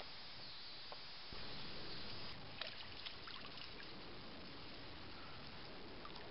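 Steady outdoor hiss on a camcorder microphone, with a short rise in low rumble a little over a second in and a few small clicks shortly after, typical of the camera being handled.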